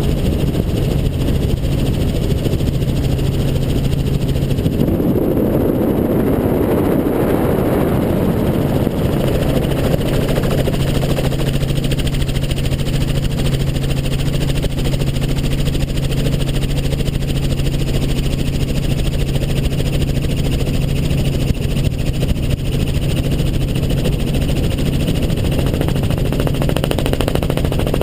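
Helicopter engine and rotor running steadily in flight, a constant low hum; about five seconds in, a rushing noise covers the hum for a few seconds before it returns.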